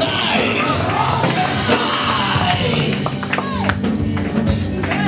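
Loud gospel praise music with singing voices over it, with a steady bass line and sharp percussive strikes that grow thicker in the second half.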